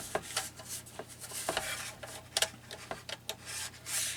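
Paper rustling and sliding, with a string of small clicks and taps, as a sheet is handled and lined up on a paper trimmer.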